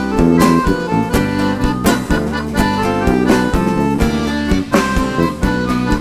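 Live band playing an instrumental introduction: piano accordion with acoustic guitars, electric bass and a drum kit, in a steady beat of about two strikes a second.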